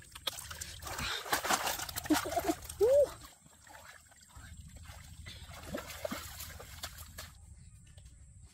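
Water splashing and sloshing as live fish thrash in a woven basket and a hand stirs them, loudest in the first three seconds, then dying down to faint drips and ticks.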